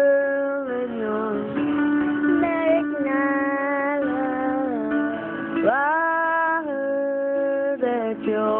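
A woman singing long held notes that glide from one pitch to the next, over a plucked guitar accompaniment.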